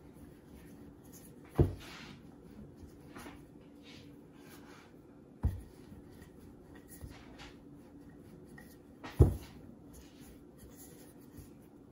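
Wooden rolling pin rolling out stiff, chilled pie dough on a floured wooden board: soft rubbing and scraping strokes, broken by three sharp wooden knocks about four seconds apart.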